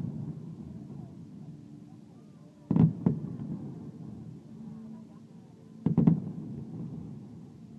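Aerial fireworks bursting: two clusters of sharp bangs about three seconds apart, each dying away into a rumble.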